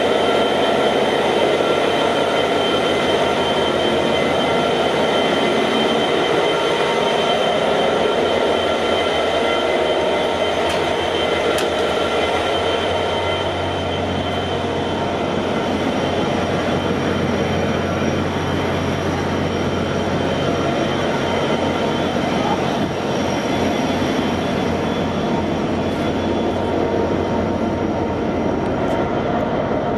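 Two EMD 12-710G3B twelve-cylinder, two-stroke turbocharged diesel engines running steadily, loud, with steady high whining tones over the rumble. About halfway through the sound turns deeper and less harsh as it is heard from the open deck instead of the engine room.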